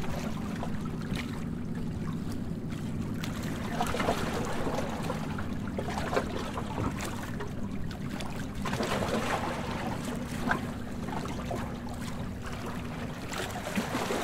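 Underwater ambience: a continuous wash of bubbling, trickling water with many small scattered crackles over a low, steady hum.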